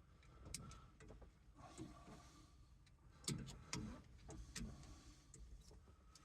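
Faint, scattered clicks and light knocks of small horn-button parts (cap, spring) being handled and set down, about eight irregular ticks over a few seconds.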